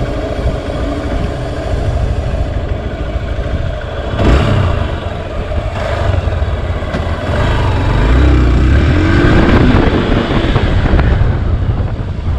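Hero Xpulse 200 BS6's single-cylinder engine pulling away from a stop and accelerating, with a knock about four seconds in. The engine note rises and gets louder from just past the middle.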